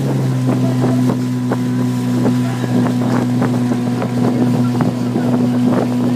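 Outboard motor of a boat pacing the rowing shells, running at a steady speed with an even low hum, and scattered light clicks over it.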